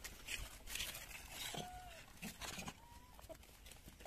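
A few faint, short calls from macaques, single thin notes scattered a second or so apart, over light rustling.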